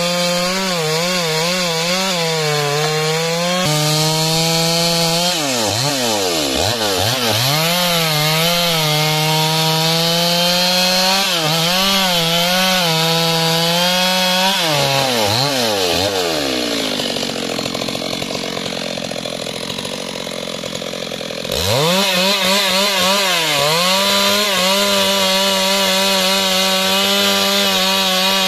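Stihl MS 382 two-stroke chainsaw running at full throttle while ripping a log lengthwise, its engine note wavering up and down as the chain bites into the wood and frees again. Past the middle the revs sag and fade for a few seconds, then the saw is back at full speed.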